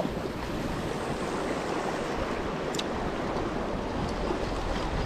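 Sea water washing and swirling against rocks at the shoreline, a steady wash, with one brief high click just past the middle.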